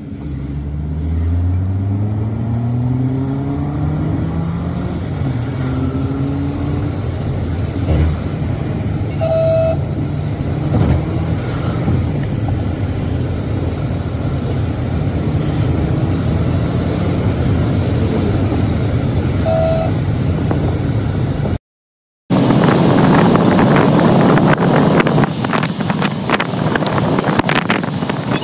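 Car engine heard from inside the cabin as the car speeds up, its pitch rising over the first few seconds, then cruising steadily with road noise. A car horn beeps briefly twice, about 9 and 19 seconds in. After a brief dropout near 22 seconds, loud wind and road rush take over.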